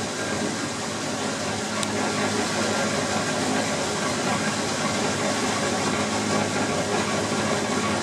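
Steady running noise of a water-wheel-driven sawmill's drive and belt machinery, an even rush with a low hum. One brief click about two seconds in.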